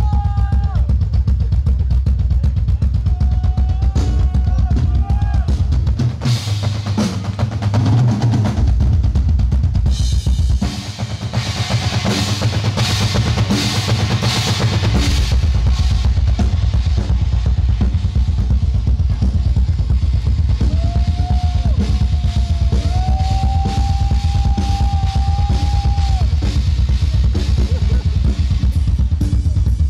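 Loud live band music with a steady drum kit and heavy bass, and a held melody line over it at times. The bass drops out twice for a few seconds in the first half.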